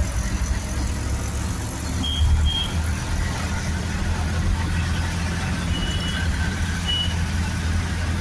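Moving vehicle heard from inside its cabin: a steady low engine and road rumble, with short high-pitched beeps twice about two seconds in and a few more near the end.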